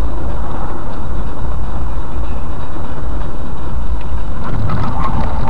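Steady, loud low rumble of a car driving, recorded by a dashcam inside the cabin. Near the end, a steady high-pitched tone begins over it.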